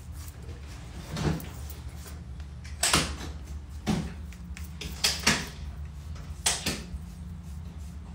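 A series of about seven short knocks and scrapes, some in quick pairs, over a steady low hum.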